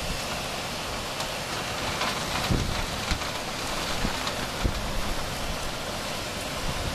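Heavy rain pouring steadily, with a few short low thumps.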